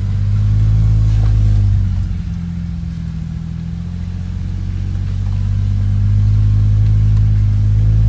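Jeep Wrangler engine heard from inside the cab, a steady low drone while crawling off-road; it eases off about two seconds in and builds again from about five seconds.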